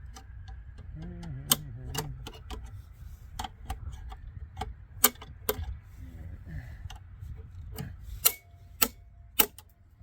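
Tools clinking and knocking against the metal parts of a large circuit breaker's mechanism as it is worked loose: a string of sharp, irregular metallic clicks, the loudest ones near the end, over a low rumble.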